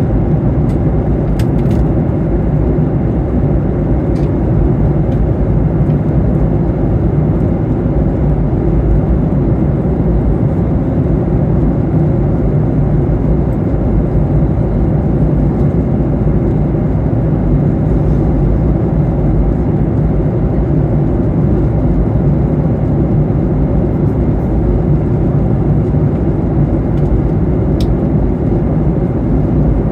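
Steady in-flight cabin drone of a Boeing 737-800, the engines and airflow heard from inside the cabin, with a faint click or two.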